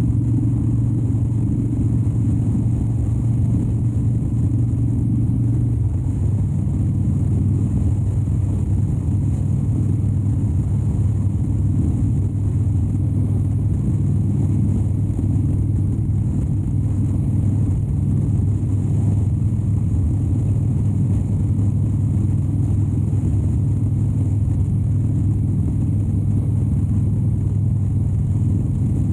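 Harley-Davidson Dyna Wide Glide's 103-cubic-inch Twin Cam V-twin running steadily while riding along a highway; its pitch drops slightly about six seconds in.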